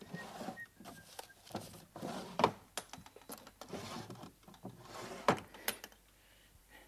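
Wooden sideboard drawers being pulled open, rummaged in and pushed shut: a run of clunks, knocks and rattles, the loudest about two and a half seconds in and again after five seconds. A few short whistled notes in the first second or so.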